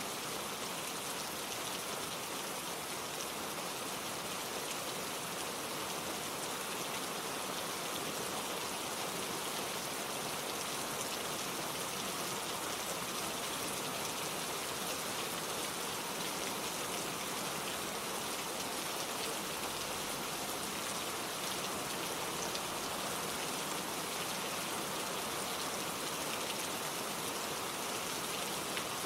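Steady gentle rain falling, an even patter of drops on a surface with no thunder.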